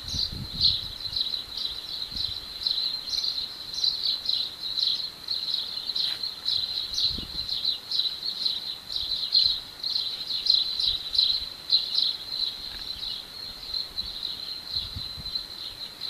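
Insects chirping in a steady high-pitched trill that pulses a few times a second.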